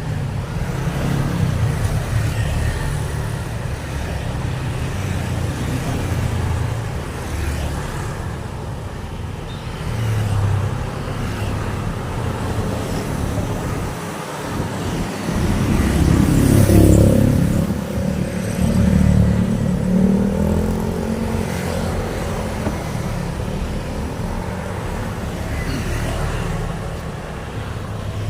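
Road traffic: a steady stream of vehicles passing along the road, with the loudest vehicle going by about sixteen to eighteen seconds in.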